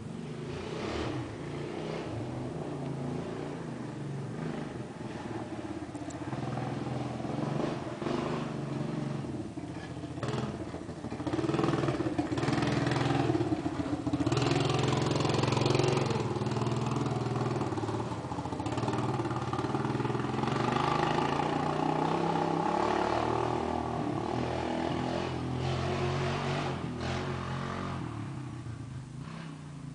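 Small ATV engine running and revving as it is ridden around, its pitch rising and falling with the throttle; it grows louder about twelve seconds in and fades near the end.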